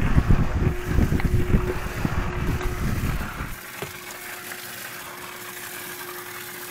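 Steady mid-pitched electric hum from a small motor on the fishing boat. For about the first three and a half seconds uneven low rumbling noise lies under the hum, then stops suddenly, leaving the hum alone.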